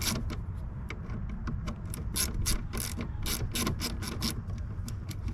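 Hand ratchet with a 7 mm socket clicking in quick runs of about three clicks a second, with short pauses between runs, as small bolts are loosened.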